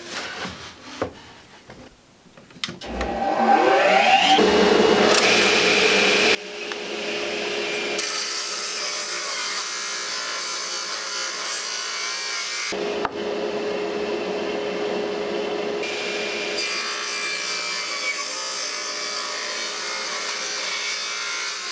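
DeWalt radial arm saw spinning up with a rising whine, then running and cutting through an old oak barn-wood board, with a steady hum under the noise of the blade in the wood.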